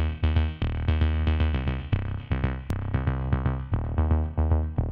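Background music with a steady beat and strong bass notes.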